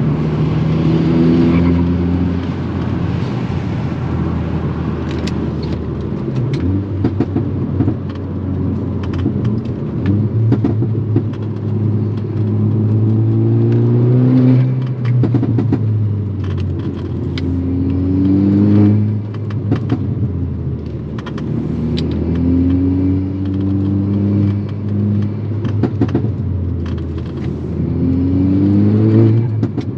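Volkswagen MK6 Golf R's turbocharged four-cylinder, fitted with a custom turbo-back exhaust, pulling hard through the gears: the engine note climbs and drops several times at the shifts.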